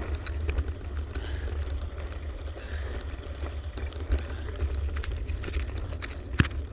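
Wind buffeting an action camera's microphone over the rolling tyre noise of a mountain bike coasting down a tarmac road. A sharp knock near the end.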